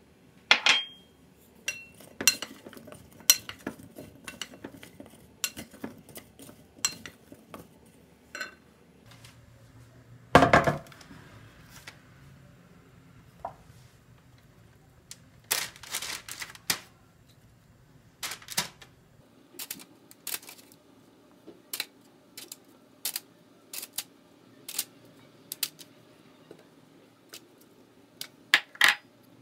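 Sharp clinks and knocks of glass and ceramic kitchenware being handled, with one heavier knock about ten seconds in. Then a run of light taps as seasoned sweet potato wedges are set one by one into a parchment-lined glass baking dish.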